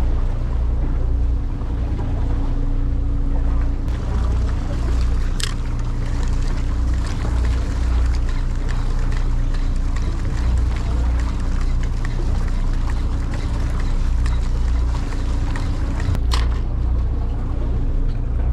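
Fishing boat's engine running steadily, a deep pulsing hum with a steady tone above it, under wind and water noise. Two short sharp ticks break through, about five seconds in and near the end.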